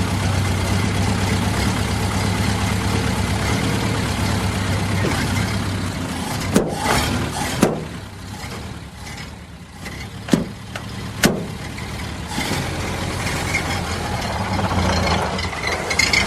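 Old car engine running steadily, then dropping away about six seconds in while several sharp clicks sound, before running again and growing louder near the end.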